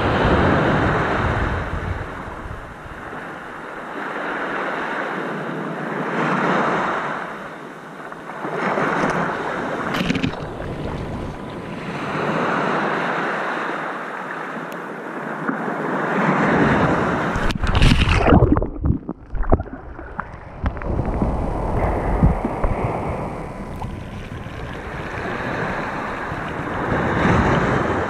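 Sea waves washing onto a shore, swelling and fading every few seconds. Wind buffets the microphone in gusts, strongest about two-thirds of the way through.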